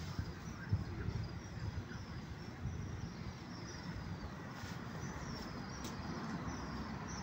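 A small bird chirping a string of short, falling high notes, about two a second, over a low rumble of wind and distant traffic.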